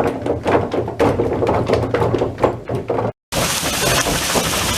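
Wooden gearing of a watermill running, the pit wheel's cogs knocking against the lantern pinion's rungs in an uneven clatter over a low hum. The gears are still not meshing well. After a brief cut, a steady rush of falling water.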